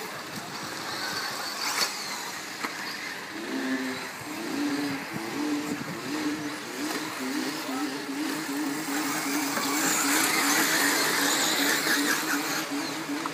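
Electric 1/8-scale off-road RC buggies racing on dirt, motors whining and tyres scrabbling, growing louder near the end as the cars pass close. From about three and a half seconds in, a low tone pulses several times a second.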